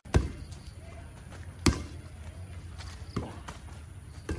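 A volleyball being struck in play: four sharp slaps of hands or forearms on the ball, about a second and a half apart, over a steady low rumble.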